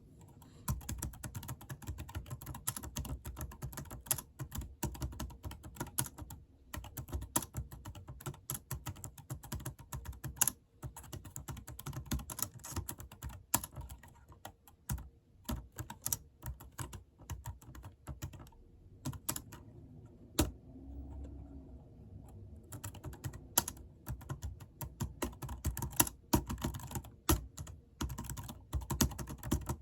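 Typing on a computer keyboard: a fast, uneven run of key clicks, with a couple of brief pauses and a sparser stretch around the middle.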